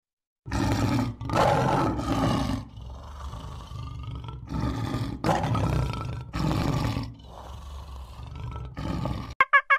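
Male lion roaring: a bout of loud, deep roars with quieter grunting between them, starting about half a second in.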